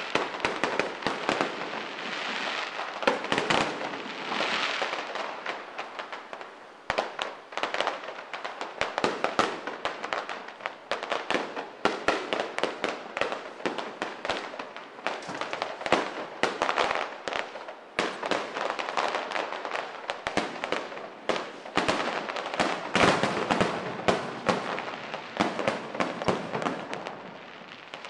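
Aerial fireworks going off in quick succession: a dense, continuous stream of sharp bangs and crackling from bursting shells, with no let-up.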